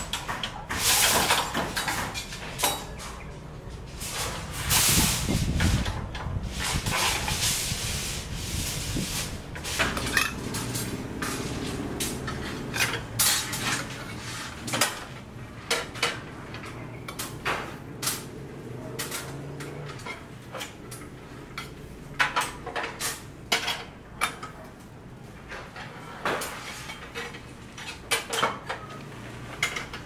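Steel rebar being bent by hand with a pipe lever on a nailed wooden jig: irregular metallic clinks and clanks as the bars and pipe knock against each other and the nails.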